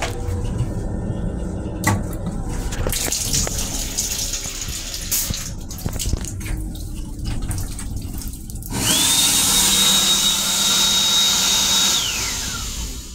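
Water from the automatic faucet runs into the sink of an M7 railcar restroom. About nine seconds in, the hand dryer in the same unit starts with a loud rush of air and a steady high motor whine. Near the end it shuts off and the whine glides down as the motor spins down.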